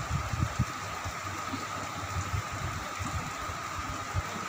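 Onions and spice paste sizzling in oil in a metal wok: a steady frying hiss with a steady high hum under it and a few dull low knocks from the metal spatula.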